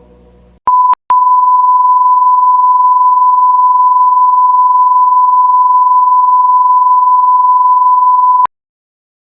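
Steady broadcast test tone of the kind played at a station's sign-off: one pure, loud tone. A short stretch, a brief break, then a long unbroken stretch of about seven seconds that cuts off suddenly.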